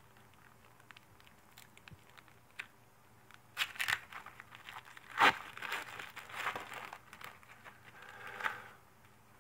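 Foil trading-card pack wrapper being torn open and crinkled by hand. A few light clicks and rustles come first, then the tearing and crinkling start about three and a half seconds in, are loudest a little after five seconds, and stop just before the end.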